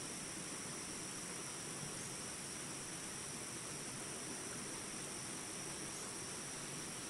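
Water flowing steadily as a stream or river, an even rushing with no change, with a constant high-pitched drone over it.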